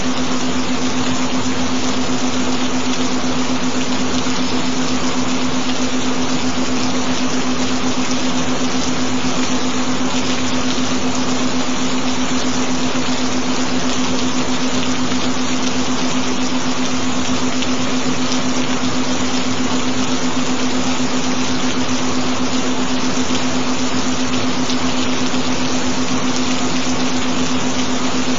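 Gentle rain, a steady even hiss, with a constant low tone underneath, the carrier of a binaural beat.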